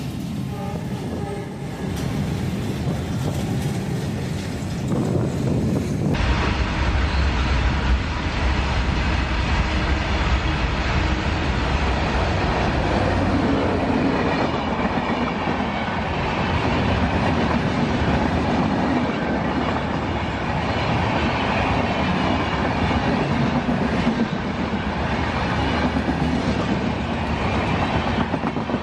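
Freight wagons of a goods train rolling past, then, after a cut about six seconds in, a long express of LHB passenger coaches rushing past at speed with a steady loud rumble of wheels on rails.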